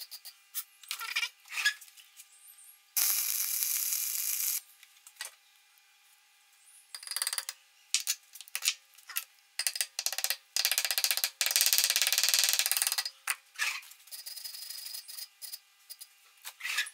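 Metal tools and parts clinking, clicking and rattling as they are handled on a workbench, with two longer rough, noisy stretches, the second made of rapid fine strokes.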